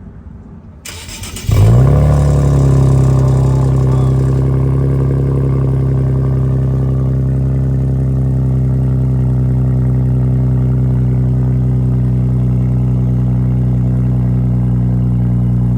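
Infiniti VR30 twin-turbo V6 starting through a freshly installed Tomei titanium single-exit exhaust: a short crank about a second in, the engine catches loudly at about a second and a half, then settles into a steady idle.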